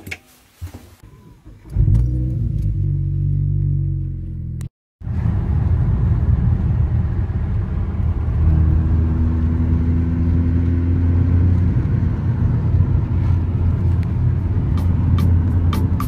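A few light clicks, then a car's low steady drone of engine and road noise heard from inside the cabin. It starts about two seconds in, cuts out briefly just before five seconds, then carries on evenly as the car drives along.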